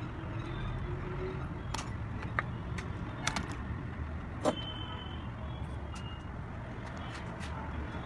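Steady low background rumble with a few sharp clicks and taps of small tools and a phone circuit board being handled on a workbench, the loudest click about four and a half seconds in.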